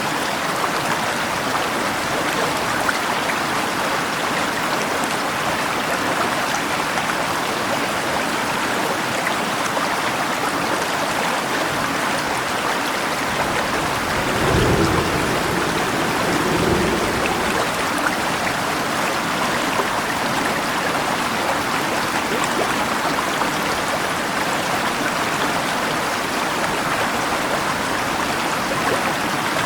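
Steady rush of a flowing river mixed with rainfall, with a low rumble of thunder about halfway through that swells twice and fades.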